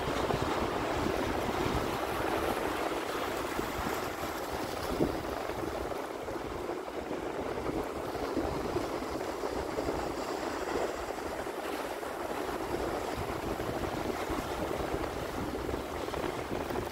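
Small waves washing in over rocks at the water's edge, a steady wash of water with no single loud break. Wind buffets the microphone.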